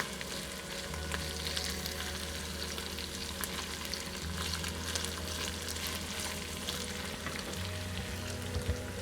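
Steady crackling, sizzle-like noise full of small ticks, over a low steady rumble.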